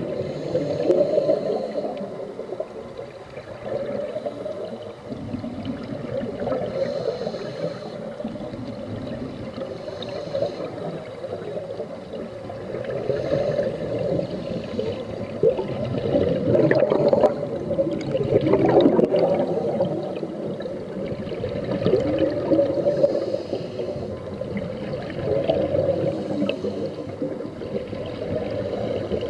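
Scuba diver breathing through a regulator, recorded underwater: bursts of exhaled bubbles gurgling and rushing past every few seconds.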